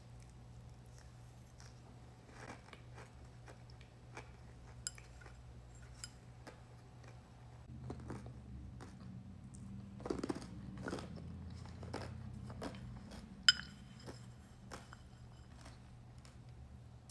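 Someone chewing crunchy flavored cornstarch crumbles: scattered sharp crunches and crackles, busiest about ten seconds in, with one loud crack a few seconds later.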